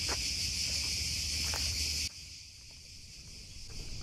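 Steady high-pitched insect chorus that cuts off suddenly about two seconds in, leaving a quieter outdoor background.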